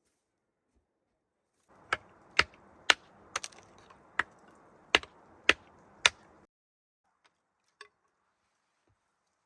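A series of about nine sharp knocks or chops, roughly two a second, over a faint hiss that starts and stops abruptly.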